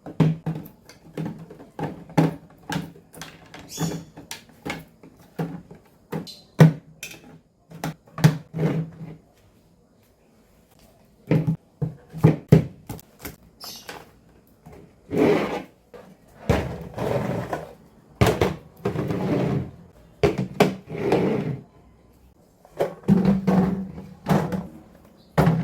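A run of knocks, clicks and clatter as groceries and containers are handled and put away in a fridge. Between them come several longer bursts of rustling.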